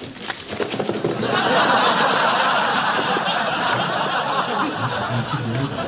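Audience laughter, swelling about a second in and thinning out near the end.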